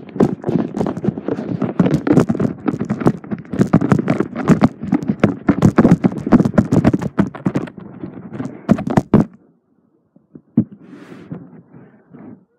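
A rapid, loud run of knocks and scuffs that stops suddenly about nine seconds in, followed by a few faint knocks.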